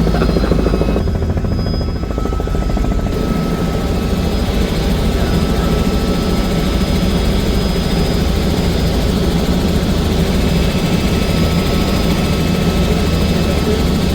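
Helicopter in flight, its rotor and engine running with a steady, loud, rapid chop.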